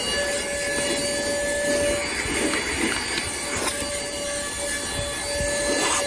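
Airmoto 12V handheld car vacuum running, a steady high whine over rushing air, as its nozzle is worked over a leather car seat picking up crumbs, with a few brief clicks along the way.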